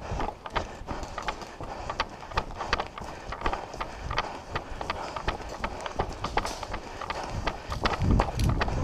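Footsteps of a person running, with irregular clicks and knocks of gear throughout and a heavier thump about eight seconds in.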